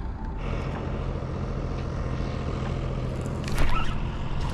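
A steady low rumble with a constant hum, like a motor vehicle's engine running. There is a brief louder sound about three and a half seconds in.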